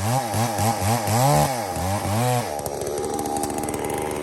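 Chainsaw cutting through a big log, its engine pitch rising and dipping about three times a second as the chain loads in the wood, then running steadier for the last second and a half.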